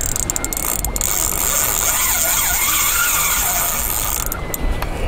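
Fishing reel's drag paying out line as a hooked fish runs: a steady high-pitched buzz that eases a little near the end.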